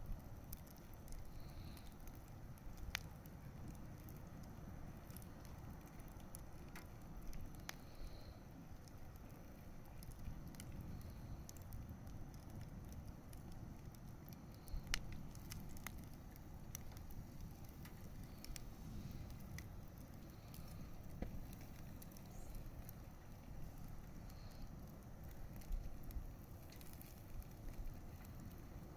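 Wood campfire burning: a steady low rush of flames with scattered sharp crackles and pops of the wood.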